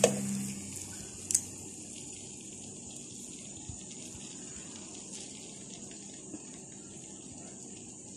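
Brown sugar heating in a metal wok with a low, steady hiss. A metal ladle knocks against the pan at the start and again about a second later, with a few faint ticks after.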